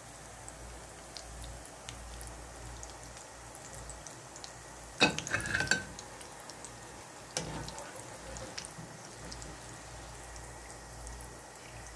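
Batata vadas deep-frying in hot oil: a steady sizzle, with oil dripping back from a wire skimmer as the vadas are lifted out to drain. About five seconds in there is a brief louder clatter, and a smaller knock a couple of seconds later.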